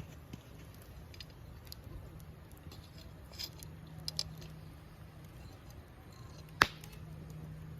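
Wood bonfire crackling, with scattered small snaps and one loud sharp pop near the end.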